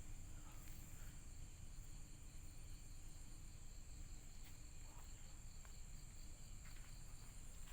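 Crickets chirring steadily in a faint, high-pitched night chorus, over a low rumble and a few faint ticks.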